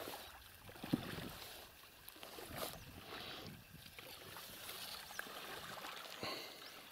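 Faint splashing of paddles dipping as a small inflatable boat is rowed, with a few sharp knocks.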